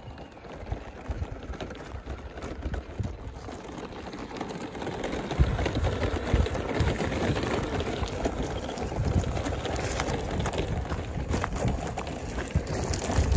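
Radio-controlled 4x4 crawler's tyres crunching over loose gravel and rubble, with many small stone clicks and clatters. It gets louder about five seconds in as the truck comes close.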